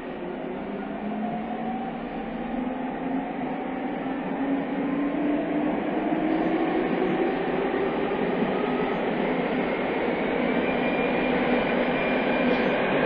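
Onboard running sound of a JR East 209 series 500-subseries electric train accelerating in a tunnel. The VVVF inverter and traction motors whine in several rising tones over growing wheel and rail noise, getting steadily louder.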